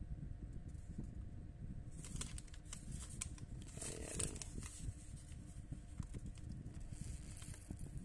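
Paper rustling and crinkling as a folded instruction leaflet is unfolded and handled, in two spells: one starting about two seconds in, another near the end.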